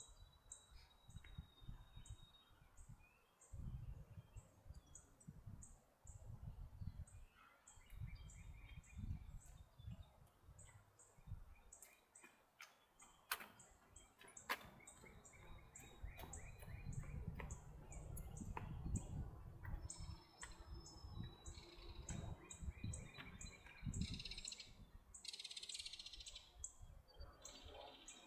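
Birds chirping and singing in the trees around a lake, with a steady run of short, high chirps and a louder burst of song near the end. Gusts of wind rumble on the microphone throughout, and two sharp clicks come about halfway through.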